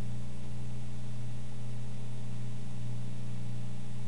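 A steady low hum over an even hiss, unchanging, with no other sound.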